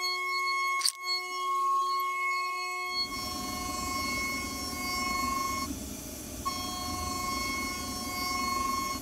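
CNC end mill cutting aluminium: a steady high-pitched cutting whine with overtones, a single sharp click about a second in. About three seconds in a loud rushing clatter of flying chips joins, and the whine's upper note drops out briefly near six seconds.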